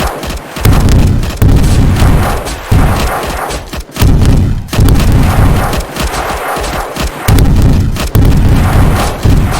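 Battle sound effects: a string of heavy explosions, one every second or two, with rifle shots cracking between them.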